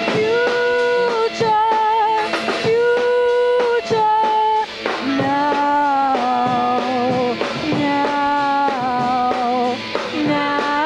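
Rock band playing: drum kit, guitar, bass and saxophone, with a melody of held notes that waver in pitch over a steady beat.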